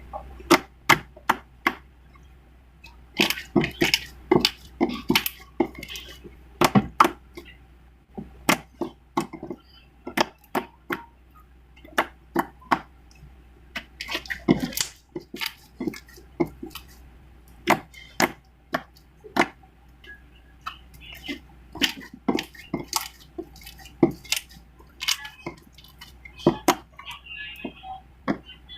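Slime being squeezed, poked and stretched by hand, making irregular sharp clicks and pops, a few a second, as air pockets in the slime burst.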